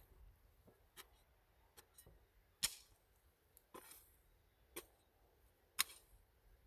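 Sharp knocks of a hand tool striking the ground while clearing soil, about one a second at an uneven pace; the two loudest come about two and a half seconds in and near the end.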